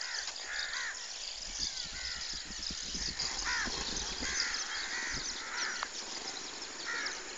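Crows cawing again and again, with fainter higher bird chirps behind them and a low rumble from about two to five seconds in.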